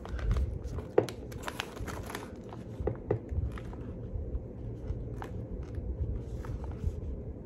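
Plastic food bag crinkling as it is held and shaken in a hand: scattered soft crackles, with sharper clicks about a second in and about three seconds in, over a low hum.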